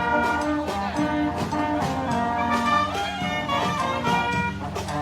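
A band with brass instruments playing an upbeat tune over a steady beat.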